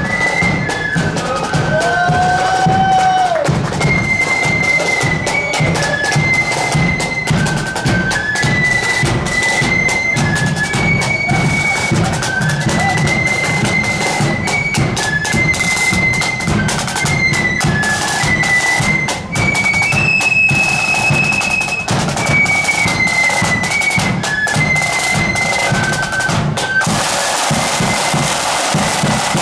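Marching flute band playing a tune, with shrill flutes in unison carrying the melody over a bass drum and rolling snare drums. Near the end the melody thins and the drumming and cymbal-like hiss dominate.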